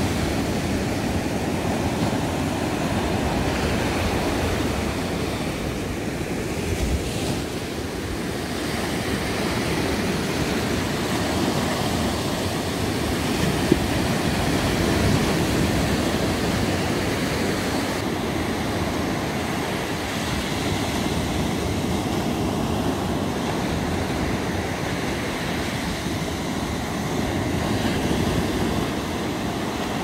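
Sea surf breaking and washing up a sandy beach: a steady rush of waves that swells and eases with each breaker.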